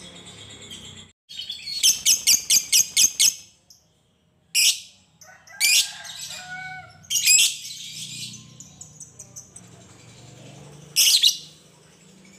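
Fischer's lovebird calling: a quick run of about eight sharp, shrill chirps about two seconds in, then single shrill calls a second or more apart, the last near the end.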